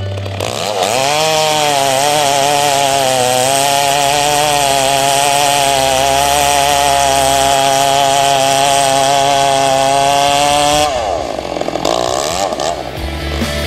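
Large chainsaw cutting into a big cedar trunk, most likely the notch cut. It revs up about half a second in and holds a steady pitch under load for about ten seconds. Then the revs drop as the throttle is let off, with a brief uneven rev near the end.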